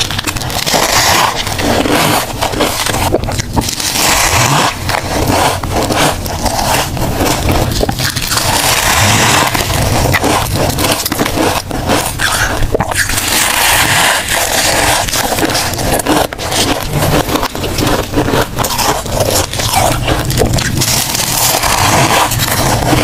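Soft flavoured freezer frost crunching and squeaking as it is squeezed in a plastic-gloved hand and bitten off: a dense, continuous run of crisp crackles.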